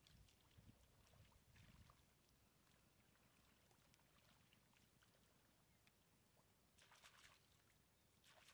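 Faint sloshing and splashing of shallow muddy paddy water as a person wades through it and reaches down into it by hand, with short splashes about seven seconds in and again near the end.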